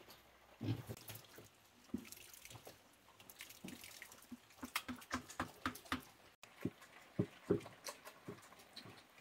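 Water splashing and dripping: a run of short, irregular plops and taps.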